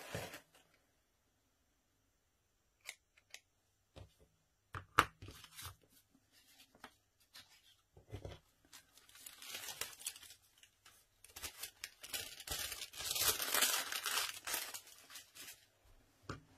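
Paper crinkle ribbon rustling and crinkling as it is handled, after a few scattered sharp clicks. The rustling starts about halfway through and is loudest shortly before the end.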